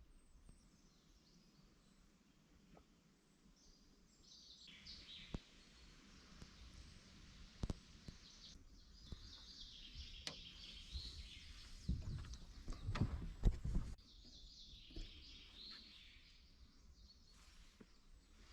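Small birds chirping, with scattered sharp knocks and clicks; a cluster of louder knocks about two-thirds of the way through is the loudest part.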